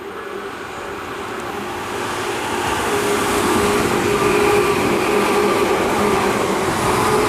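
Tobu 10000 series electric commuter train approaching and passing through the station without stopping. Its running noise grows steadily louder as it nears, then holds at full loudness as the cars go by close, with a steady hum running under the rumble of the wheels.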